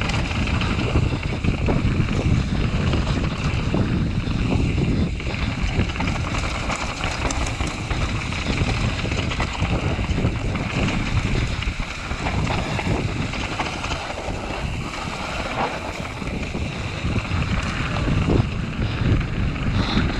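Wind buffeting a camera microphone on a mountain bike descending a rough dirt trail, with the continuous rumble and rattle of tyres and bike over bumps.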